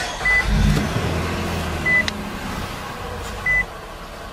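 2017 Nissan Pathfinder's V6 engine starting up, running louder for about a second and a half before settling to a steady idle. Three short high beeps sound over it, about a second and a half apart.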